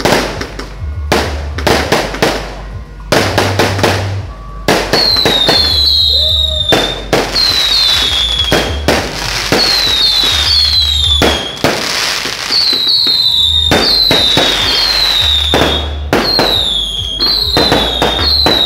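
Fireworks and firecrackers going off in rapid succession, with sharp bangs and crackles throughout. From about four and a half seconds in, short falling whistles from whistling fireworks repeat roughly every second among the bangs.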